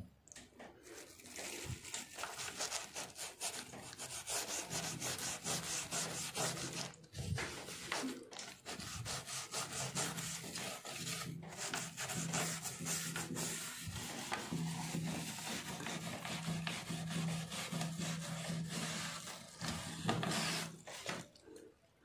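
Fast back-and-forth hand scrubbing on a refrigerator door's plastic and rubber seal. It starts about a second in and stops just before the end, to clean off the dirt that builds up there.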